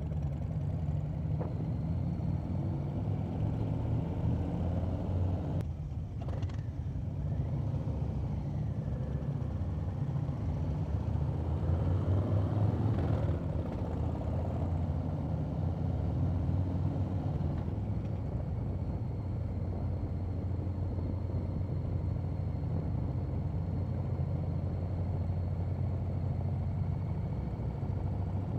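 Harley-Davidson V-twin motorcycle engines running steadily while the bikes wait in traffic and ride along a city street.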